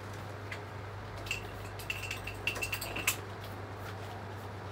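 A run of light clinks and clicks, like small hard objects tapping together, starting about a second in and lasting nearly two seconds, over a steady low hum.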